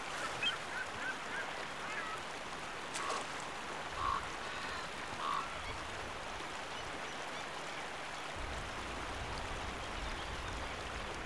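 Shallow stream water running steadily over rocks, with a few short bird calls scattered through the first half.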